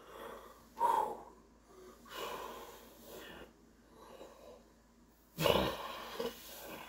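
A man breathing hard with exertion while pressing dumbbells overhead: a forced breath with each rep, about five in all, the loudest near the end.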